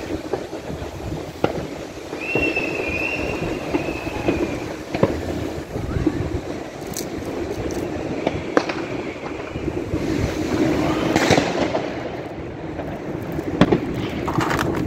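New Year's Eve fireworks and firecrackers banging and crackling all around, with several sharp bangs spread through. A firework whistle lasts about two seconds, starting a couple of seconds in.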